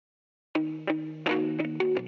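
Music begins about half a second in after silence: the instrumental intro of a rap song, a plucked, effects-laden guitar-like melody of about five struck notes over a sustained low tone, with no vocals yet.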